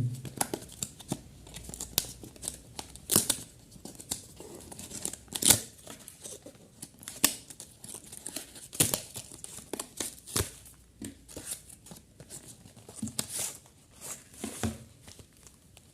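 A Boya BY-M1 microphone box being opened and its contents handled: intermittent tearing and crinkling of packaging with scattered sharp clicks and taps.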